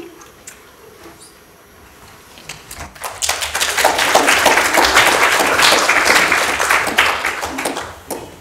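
Audience applauding: a few faint knocks, then clapping that starts about three seconds in and dies away near the end.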